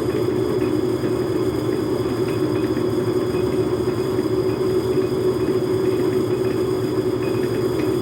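Logan metal lathe running steadily at a constant speed, a continuous even drone from its motor and drive.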